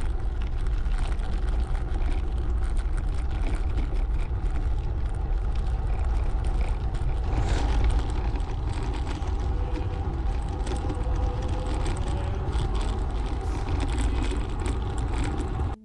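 Steady wind rush buffeting the microphone of a bicycle in motion, with tyre noise and scattered small clicks over the top.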